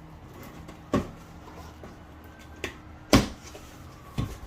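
Four sharp knocks and thuds from a cardboard shipping box being handled and opened, the loudest a little past the middle.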